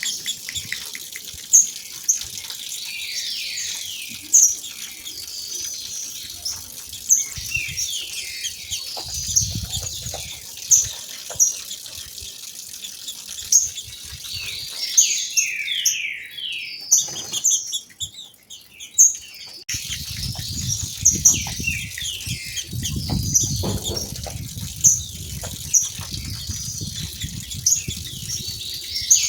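Female green-winged saltators (trinca-ferro) calling: rapid runs of short descending chirps with sharp high notes, with a brief pause just after midway. A low rumble of falling water comes and goes underneath.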